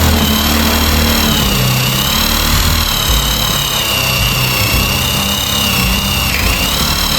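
Small electric power tool running at high speed: a steady high whine whose pitch wavers and dips briefly near the end.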